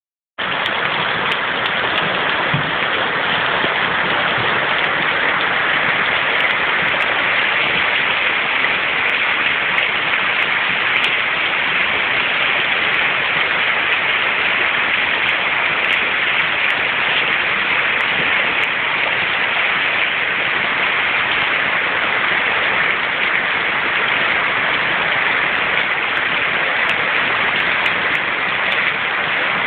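Heavy rain falling steadily onto a flooded street, a constant even hiss of rain striking standing water.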